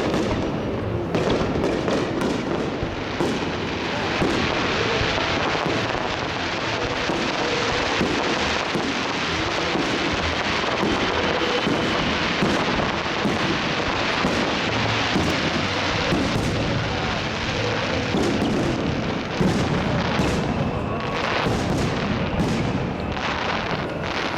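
Fireworks display: a dense, unbroken barrage of overlapping bangs as shells burst in quick succession.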